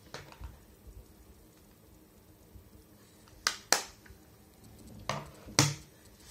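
Sharp plastic clicks from makeup palette cases being handled and snapped shut: a quick pair of clicks a little past halfway and another pair near the end.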